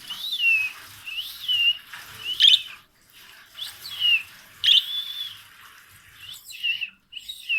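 A small bird singing a series of clear whistled notes, most sliding down in pitch, about one or two a second with short gaps between them.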